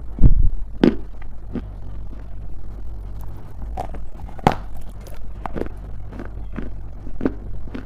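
Dry grey clay being bitten and chewed close to the microphone: irregular crisp crunches, about one or two a second, the loudest just after the start, over a steady low hum.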